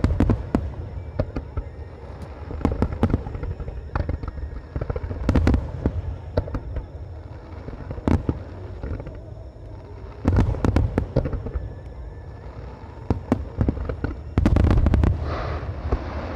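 Star mine fireworks barrage: aerial shells bursting in quick succession with sharp, deep booms, building to two dense volleys, the last one near the end.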